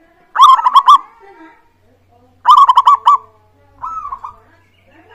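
Zebra dove (perkutut) singing: two loud phrases of quick, rolling coo notes, one about half a second in and one about two and a half seconds in, then a softer short phrase about four seconds in.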